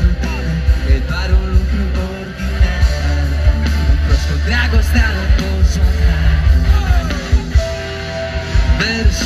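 A pop-rock band playing live through a large outdoor sound system, heard from within the crowd: steady drum beat, heavy bass guitar and electric guitar, with some singing.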